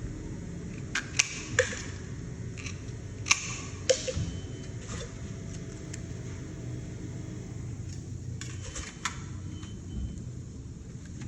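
Sharp metallic clicks in scattered groups, a few in quick succession, over a steady low hum: tool work fastening metal drywall corner bead.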